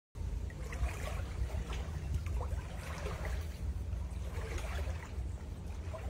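Water sloshing and trickling irregularly as someone wades through a shallow river, with a constant low rumble underneath.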